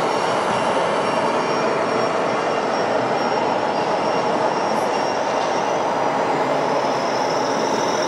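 RC model trucks driving past in convoy: a steady, dense rushing noise with faint high whines running through it.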